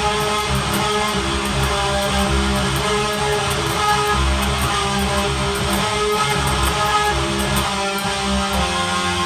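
Electric guitar tuned to drop C, a Jackson Kelly-style clone with newly installed pickups, playing a riff through an amp preset.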